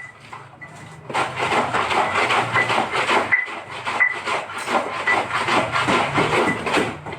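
Laundry being scrubbed by hand, a quick rhythmic rasping of rubbing strokes on wet cloth that starts about a second in.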